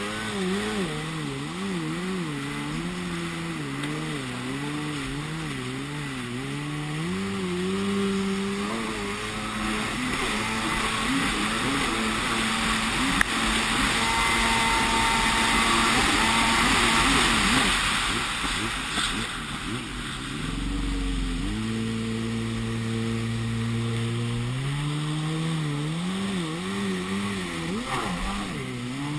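Yamaha WaveBlaster 701 jet ski's two-stroke engine running under way, its revs rising and falling over and over. Through the middle stretch a louder rush of water spray and wind covers the engine.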